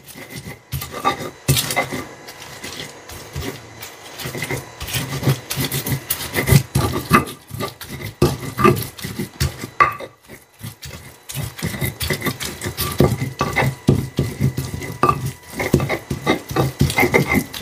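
Stone pestle grinding chillies, shrimp paste and salt into sambal terasi in a stone mortar (cobek and ulekan): a rapid, irregular run of stone-on-stone scrapes and knocks as the mixture is worked to a smooth paste.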